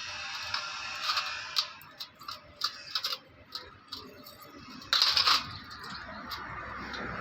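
Light clicks and ticks of small metal parts being handled, with a louder, noisy scrape or rattle about five seconds in.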